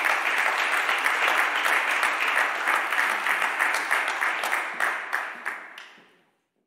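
Applause from a small audience, fading away near the end.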